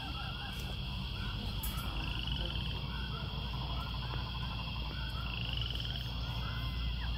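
A chorus of short, repeated animal calls, frog-like croaks or chirps, with two brief high trills, over a steady low hum.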